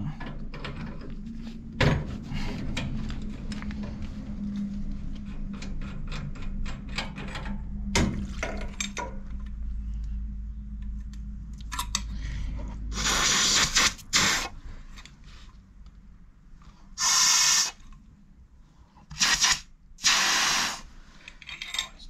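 Clicks and knocks of brass and copper fittings being worked loose at a combi boiler's cold-water inlet, then about four short, loud hissing spurts of water spraying from the opened fitting in the second half.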